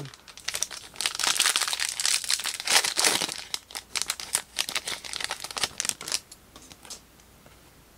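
Foil wrapper of a Panini Select basketball trading-card hanger pack being torn open and handled, a dense crinkling crackle that stops about a second before the end.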